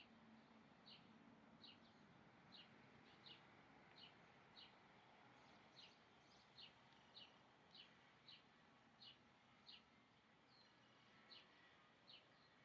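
A bird calling over and over with short, high chirps that each slide down in pitch, one or two a second with a brief pause near the end, over a faint steady hiss.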